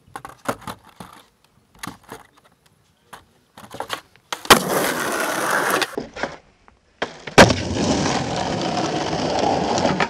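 Skateboard on a wooden wall: scattered light taps and scuffs, then about four seconds in the board runs noisily along the wooden wall top for about a second and a half. After a short gap comes a sharp slap of the landing about seven seconds in, and then the urethane wheels roll steadily on asphalt.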